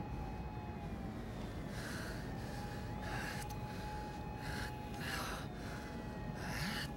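A person breathing hard in ragged gasps, starting about two seconds in, a breath every half-second to second. Beneath it are a low rumble and a thin steady tone.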